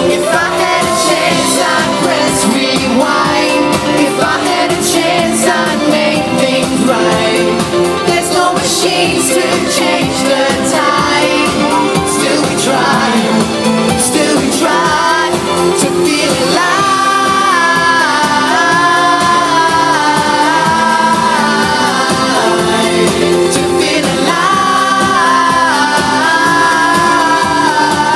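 Live pop music: a male singer sings into a microphone over the band, heard from among the audience. The voice holds long notes through much of the second half.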